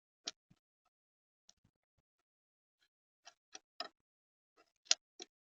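Irregular sharp taps and clicks of a bird pecking at seed on a camera bird feeder: one about a quarter-second in, a cluster of three just past the middle, and two more near the end, the loudest of all.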